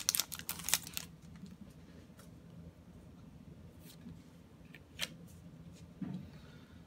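Foil booster-pack wrapper crinkling for about the first second, then faint rustles and clicks of a small stack of trading cards being handled, with one sharper click about five seconds in.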